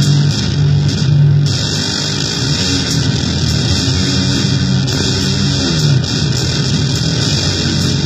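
Electric guitar played through an effects pedal under test: a loud, heavily distorted, noisy tone over low held notes, which slide down in pitch about five to six seconds in.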